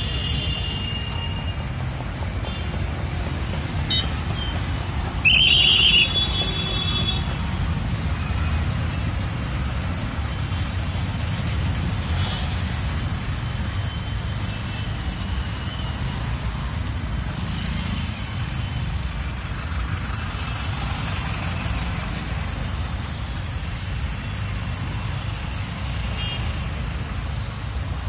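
Steady low rumble of congested road traffic heard from a car, with a vehicle horn honking loudly for about a second around five seconds in, and a fainter horn near the start.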